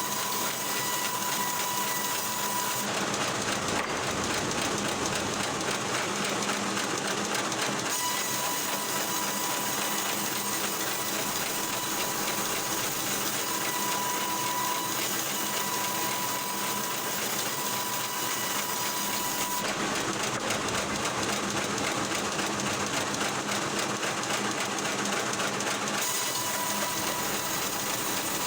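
Log-cutting machinery running with a steady mechanical clatter and a faint whine, the sound changing abruptly several times.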